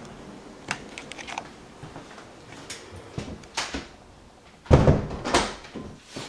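Clicks and knocks of a door being handled, with two heavy thuds about five seconds in, the loudest sounds here.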